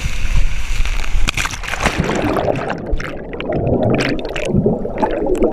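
Water rushing down a waterslide, then a splash into a pool about one and a half seconds in. After the splash comes muffled underwater bubbling and churning, heard from below the surface.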